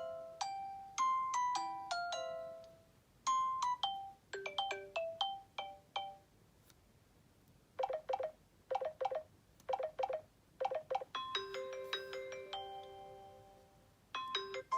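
Samsung Galaxy J2 Prime stock ringtones played one after another: short melodies of quick, fading pitched notes. A different tune begins every three or four seconds, with brief pauses between.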